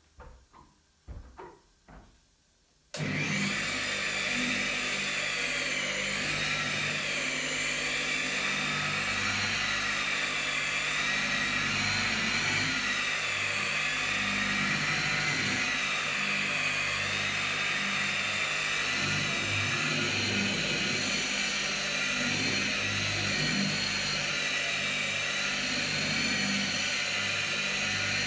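A few soft handling knocks, then about three seconds in an electric car polisher with a foam pad switches on and runs steadily, buffing the paint's clear coat. Its motor whine wavers slightly in pitch as the pad is pressed and moved over the panel.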